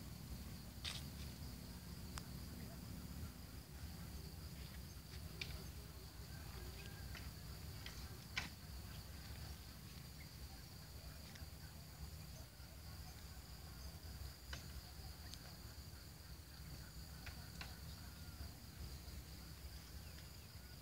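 Insects trilling steadily at a high pitch over a low rumble, with a few faint clicks; the loudest click comes about eight seconds in.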